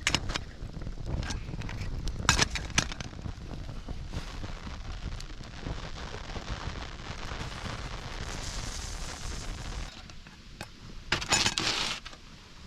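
Wood crackling and popping in a campfire, with scattered sharp cracks and a dense cluster of loud cracks a little before the end, over a low steady rumble.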